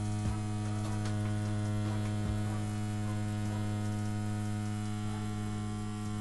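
CNC P6 rotary tattoo pen machine running steadily at 8 volts while pushing an 18-round liner needle through lines: a steady, even hum.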